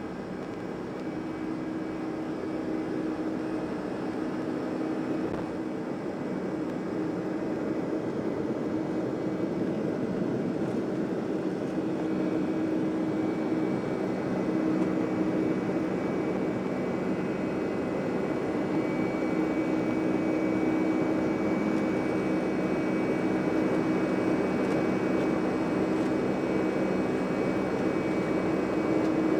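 Jet engines of a Boeing 757-300 running with a steady hum and a few held tones, growing steadily louder.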